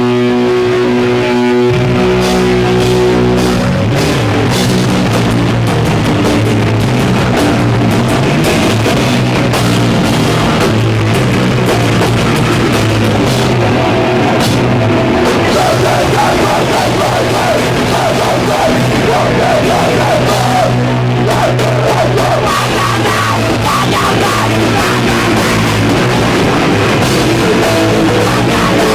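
Hardcore band playing live at full volume: distorted electric guitar, bass and drum kit. It opens on held notes, and the full band comes in about two seconds in.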